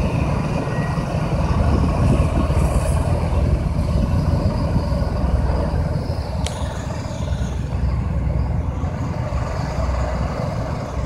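Heavy-haul tractor truck engines running at low speed, with the multi-axle trailers of an oversize load and passing cars adding a steady low drone. A single sharp click comes about six and a half seconds in.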